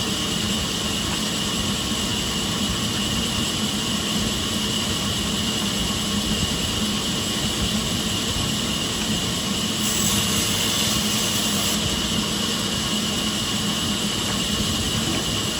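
Sawmill machinery running steadily with a constant mechanical drone and hum. About ten seconds in, a brighter hiss joins it for about two seconds.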